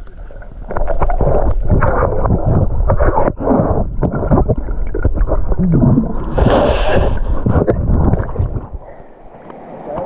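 Muffled underwater sound of water churning and gurgling around a submerged camera as the swimmer strokes, in uneven surges. It drops off near the end as the camera nears the surface.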